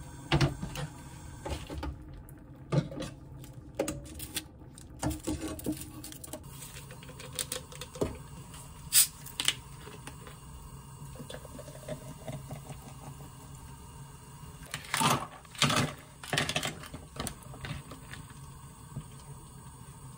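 Kitchen handling sounds: a string of sharp clicks and knocks as bottles, a glass and cookware are picked up and set down on a stone countertop, with a busier run of knocks near the end, over a steady low hum.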